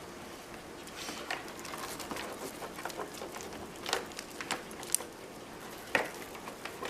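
Power supply cables and their plastic connectors being handled and sorted, making scattered light clicks and rustling, with a few sharper clicks near the middle and end.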